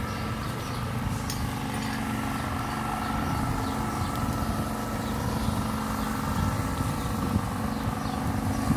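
A motor running steadily: a low rumble with a steady hum through it.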